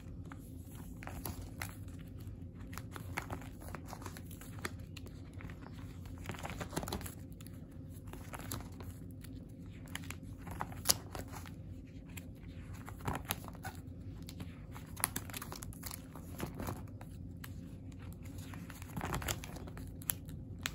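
Clear plastic photocard binder sleeves crinkling and rustling as the pages are turned one after another, with scattered light ticks and one sharper tick about eleven seconds in.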